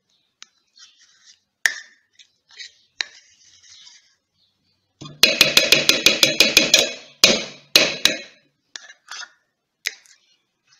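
Metal spoon scraping vegetable shortening out of a plastic measuring cup, then, about halfway through, knocking against the cup in a quick run of about a dozen sharp, ringing taps, followed by a few slower taps.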